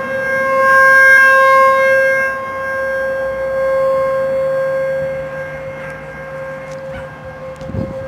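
Outdoor tornado warning siren sounding its monthly test: a steady wail held at one pitch, swelling louder about a second in and easing off after a few seconds.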